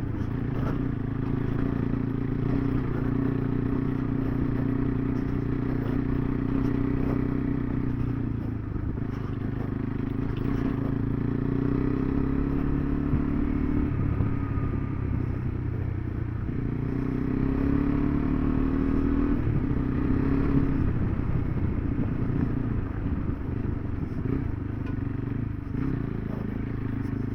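Single-cylinder adventure motorcycle engine running on a dirt road, its pitch rising and falling a few times as the throttle changes, with light rattling over the rough ground.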